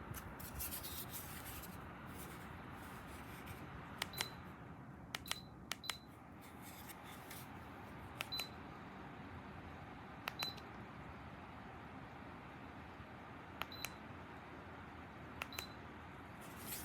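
Dreo space heater beeping in response to remote-control button presses: about seven short, high single beeps, each with a sharp click, spaced a second or more apart, over the heater's steady fan hiss.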